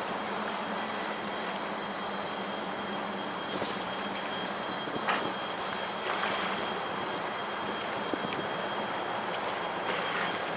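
Steady rushing noise of fast-flowing river floodwater over a submerged riverside walkway, with a faint steady high tone above it.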